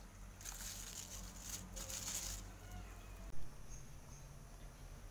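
Dry shallot skins rustling in a plastic basket as hands pick through the shallots, for about two seconds, followed by a single short thump about three and a half seconds in.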